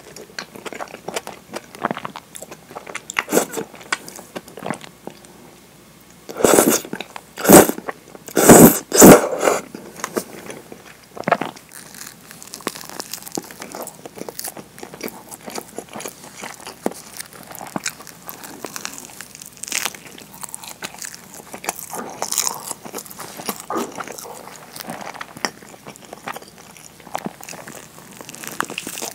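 Close-miked eating: mouth sounds of chewing and biting, with many small wet clicks and smacks, and four loud short bursts between about six and nine seconds in. The food is thick curry udon and a nori-wrapped rice ball being bitten into.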